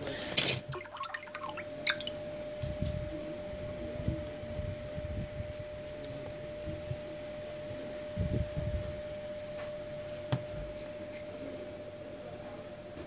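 Hands handling a smartphone on a work mat: a sharp knock about half a second in, then scattered light clicks, taps and soft bumps, over a steady faint hum.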